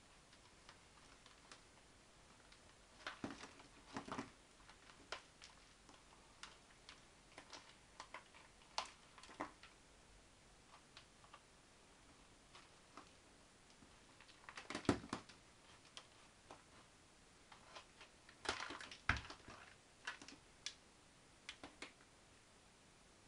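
Scattered light clicks and crackles of a thin plastic orchid pot and roots being handled and pulled apart, with a few louder bursts of crinkling past the middle and again later on.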